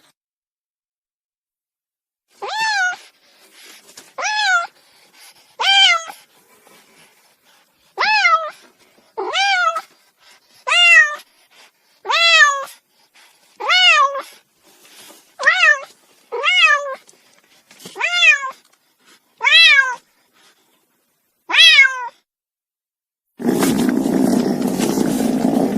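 Domestic cat meowing repeatedly, about thirteen short meows each rising then falling in pitch, one every second or so. Near the end a steady, noisy drone cuts in abruptly.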